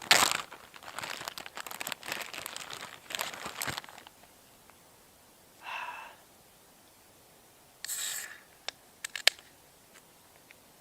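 Plastic Ziploc bag crinkling and rustling for about four seconds as beer cans are handled, then a short hiss about eight seconds in as a beer can is cracked open, followed by a few light clicks.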